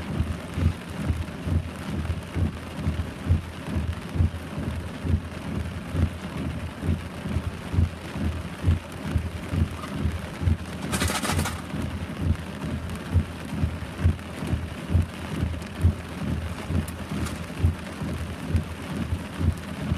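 Heavy rain falling, with dull thuds of large drops landing close by two to three times a second. About eleven seconds in there is a brief hiss.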